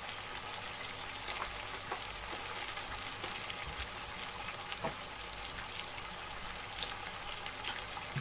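Oil sizzling steadily with scattered small pops in a pot of frying potatoes, carrots and peas.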